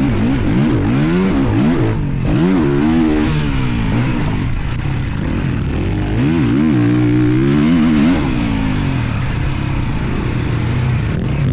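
Two-stroke motocross bike engine under hard riding: the revs climb and drop again and again as the throttle is opened and closed through the track, with engine pitch sweeping up and down about every half second to second.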